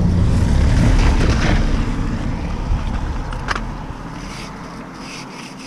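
Low rumble of a passing motor vehicle, loudest at first and fading away over several seconds. A sharp metallic click is heard about three and a half seconds in.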